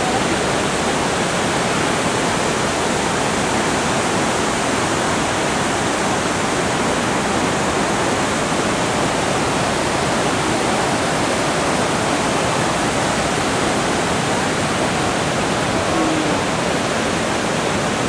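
The Devil's Throat at Iguazu Falls: a huge volume of water plunging over the falls, a loud, steady, unbroken rush of falling water and spray.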